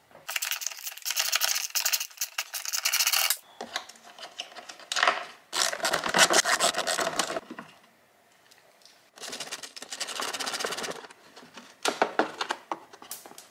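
Hand screwdriver turning out the screws of a motorcycle's rear fender: four bursts of rapid, even clicking, each a second or two long, with short pauses between.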